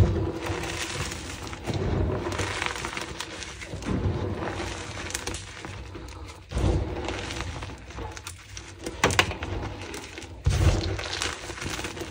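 Hands squeezing and crumbling a heap of dry gym chalk blocks: gritty crunching and crackling in repeated bouts about every two seconds, with dull thuds as chalk pieces fall back onto the pile.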